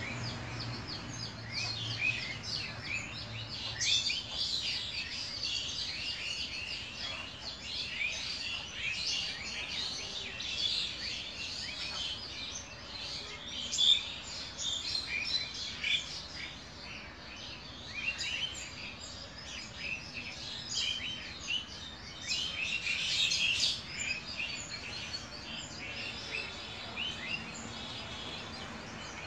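Many small birds chirping busily, with dense short chirps overlapping throughout.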